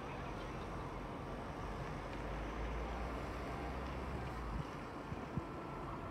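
Steady outdoor harbour ambience: a low rumble and hiss that grows stronger through the middle, with a couple of light knocks near the end.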